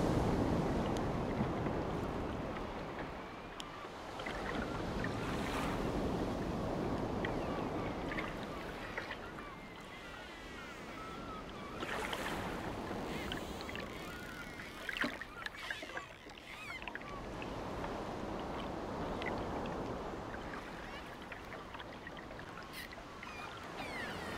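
Ocean surf breaking against a seawall and washing over the promenade, the roar of the water swelling and fading in slow surges every few seconds.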